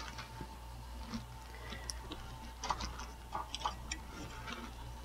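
Faint, irregular small clicks and rustles of hands handling electrical wires at a dishwasher's junction box.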